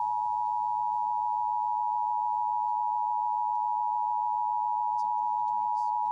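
Emergency Alert System attention signal: the two-tone 853 Hz and 960 Hz alert tone sounded together, held steady and loud, opening a required monthly test of the alert system.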